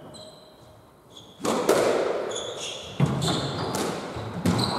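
Squash rally: the ball is struck by rackets and cracks off the court walls, several sharp echoing hits starting about a second and a half in. Court shoes give short squeaks on the wooden floor between the hits.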